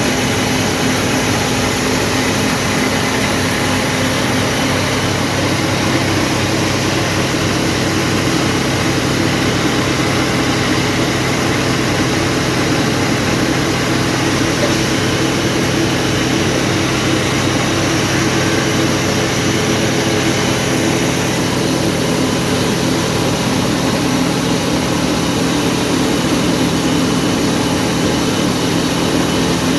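Wheat grain grading and cleaning machine running steadily: a constant mechanical hum under an even rushing noise, with no change in pace.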